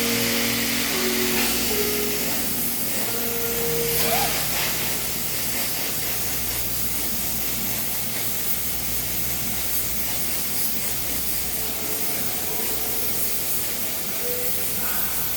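Steady hiss of a gas torch flame used for welding quartz, with background music faintly under it near the start and the end.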